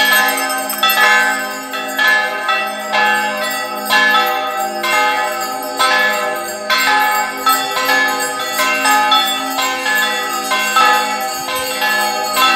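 Bells ringing in an even rhythm, struck about once a second, each stroke's tone still ringing under the next.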